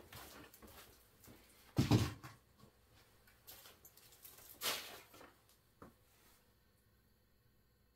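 Knocks and clatter of things being handled, a canvas and paint supplies, with a loud thump about two seconds in and a smaller knock a little before the five-second mark.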